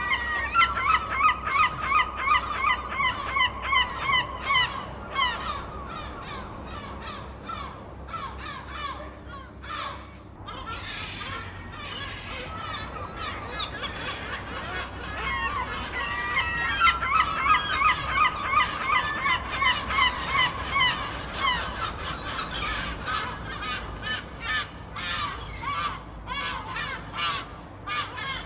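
Seagulls squawking, a flock calling over one another. Twice a gull gives a long run of rapid repeated calls, a few a second, with scattered single calls between and after.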